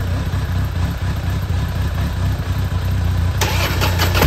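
Harley-Davidson Night Train's V-twin engine idling steadily. About three and a half seconds in, a louder, rougher noisy burst with sharp crackles sets in.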